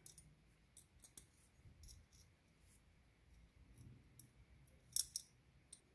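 Faint, sparse clicks of small metal parts being handled while fitting a metal scale radial engine's crankcase cover. A sharper pair of clicks comes about five seconds in.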